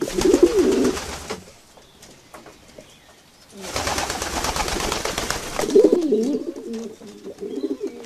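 A flock of feral pigeons cooing, broken in the middle by a loud flurry of flapping wings lasting about two seconds. The cooing picks up again near the end.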